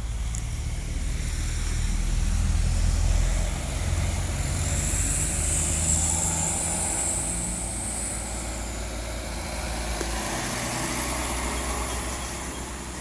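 A truck engine running as the truck passes on a hill climb, loudest about three seconds in and then slowly fading. A high hiss rises in the middle and dies away.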